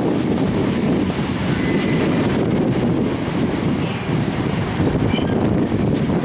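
Loaded coal hopper cars of a freight train rolling past, a steady rumble of steel wheels on rail, with a faint high wheel squeal in the first couple of seconds.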